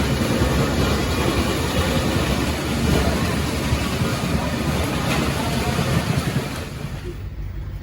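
Fishing boat under way: the engine's steady rumble under a rushing hiss, which drops off about seven seconds in.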